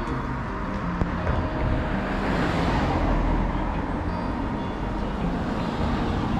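Road traffic running steadily, with one vehicle passing by and fading about two to three seconds in.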